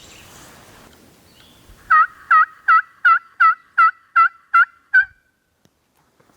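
A run of nine loud turkey yelps, evenly spaced at a little under three a second.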